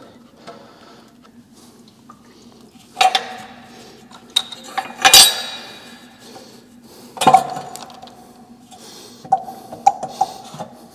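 Stock exhaust header pipes of a Yamaha XSR900 clanking against the bike as they are worked free of the engine. It comes as a handful of separate metal knocks with a short ring, the loudest about five seconds in, then a few lighter clinks near the end.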